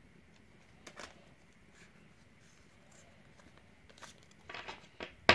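Pokémon trading cards being handled and fanned through by hand: faint slides and flicks of card stock, a short rustle about a second in, and a denser cluster of card flicks near the end that finishes in one sharp, loud click.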